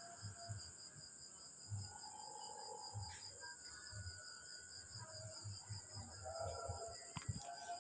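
Crickets chirping in a steady high trill, with faint low knocks here and there.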